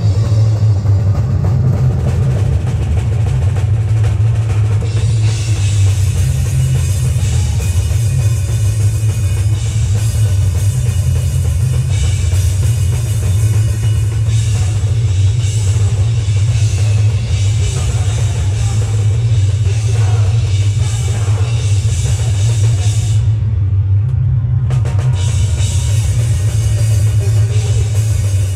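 Loud live heavy rock band playing: drum kit with bass drum and crashing cymbals over a heavy distorted bass and guitar. The cymbals stop for about a second and a half near the end, then come back in.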